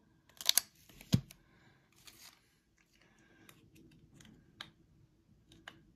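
Handling noises of a clear plastic coin capsule: a brief rustle and a sharp knock about a second in, then scattered light clicks as the capsule is moved and set down on its stand.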